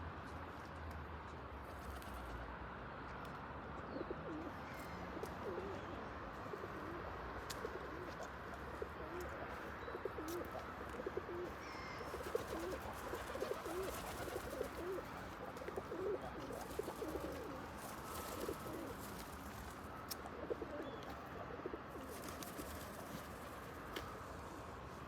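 Pigeons cooing: a run of short, low, repeated coos that begins about four seconds in, is busiest in the middle and fades out a few seconds before the end, over a steady background hiss.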